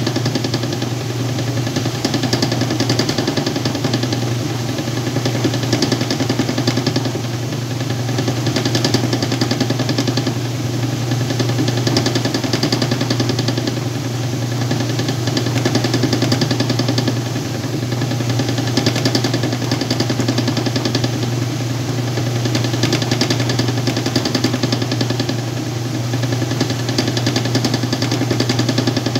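Whirlpool washing machine running through its wash or rinse with a load of towels: a steady motor hum under a swishing noise that swells and fades.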